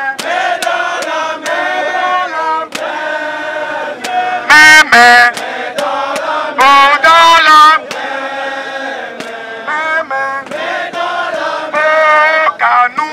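A group of protesters singing a chant together in unison, with one voice leading loudly through a megaphone twice, about four and a half and seven seconds in.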